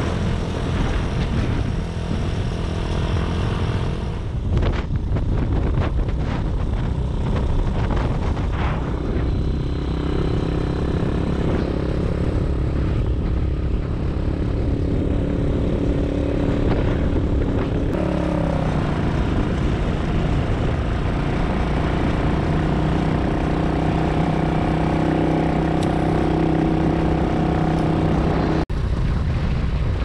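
Motorcycle engine running while riding, with wind and road noise; about two-thirds of the way through the engine note falls and then holds steady.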